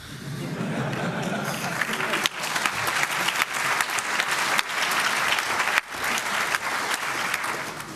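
Audience applauding in a lecture hall: dense clapping that builds over the first two seconds, holds, and dies away near the end.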